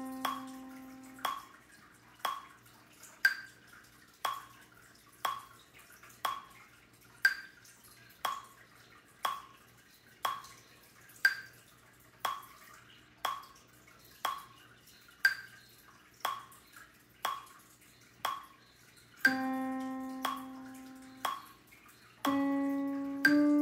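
A metronome clicking steadily at about one beat a second, every fourth click louder. A held pitched note around middle C rings at the start. Near the end a few more notes follow, the last ones stepping upward: a melody played for ear-training identification.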